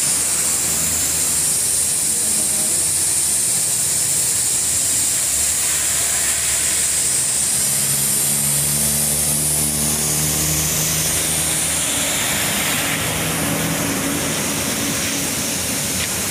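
Road traffic passing: a vehicle's engine hum swells about six seconds in and fades after about thirteen seconds, over a steady high hiss.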